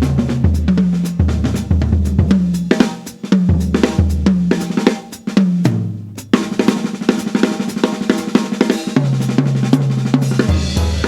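Jazz trio playing, with the acoustic drum kit to the fore (snare, bass drum, hi-hat and cymbals) over a double bass line. There is a sharp accent about six seconds in.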